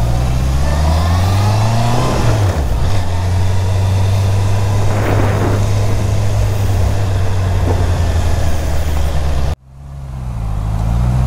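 Honda CB650R's inline-four engine pulling away, its pitch rising for about two seconds, dipping, then running steadily. About nine and a half seconds in the sound cuts off abruptly and fades back in with the engine's pitch wavering up and down.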